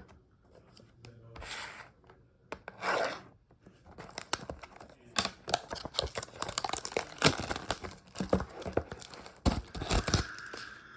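Trading card pack wrappers being handled and torn open: two short swishes, then a long run of crinkling and sharp ripping crackles.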